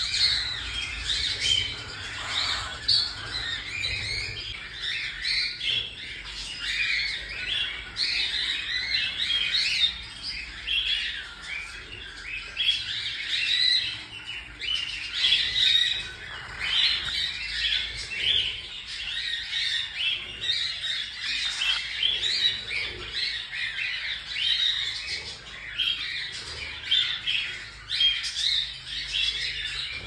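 Cockatiel chicks squawking and chirping: a continuous run of many short, overlapping calls.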